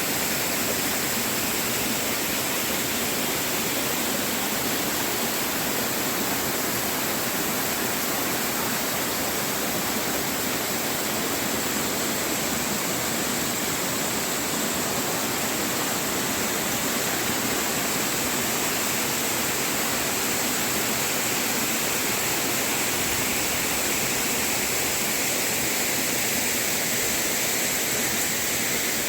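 Small waterfall pouring over rocks, a steady rushing of falling water.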